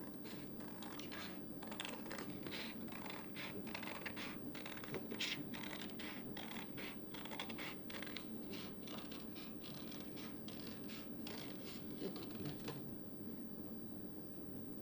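Paper and card being worked by hand: a quiet, irregular run of crisp clicks, snips and scratches, a few a second, that stops about 13 seconds in.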